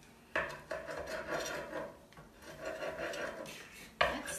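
Pizza cutter wheel rolling and scraping across a stoneware bar pan, chopping cooked chicken. It comes as long back-and-forth strokes, with a sharp new stroke starting near the end.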